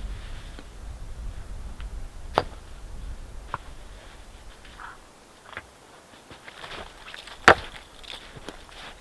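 A few scattered sharp knocks, two standing out: one about two and a half seconds in and a louder one about seven and a half seconds in.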